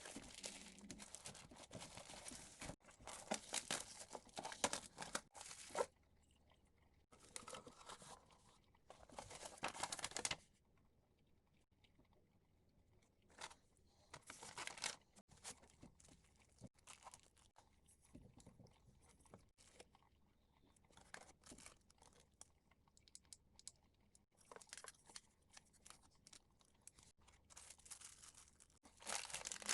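Crinkling and rustling handling noise in irregular bursts of one to a few seconds, with quiet gaps between; busiest in the first ten seconds.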